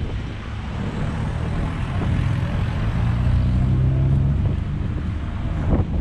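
A motor vehicle's engine hum swells as it passes by, loudest midway, then fades, over wind buffeting the microphone.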